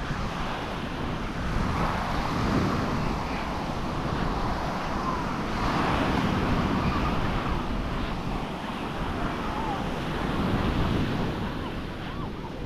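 Sea waves washing onto a sandy beach, the surf noise swelling and falling back every few seconds, with wind buffeting the microphone.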